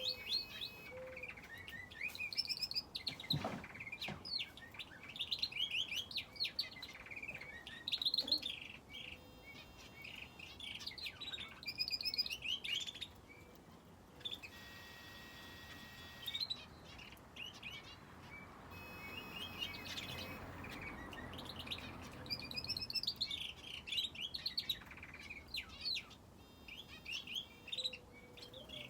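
Aviary finches and a canary chirping and calling, many short high notes in quick clusters that keep coming. A brief knock about three and a half seconds in.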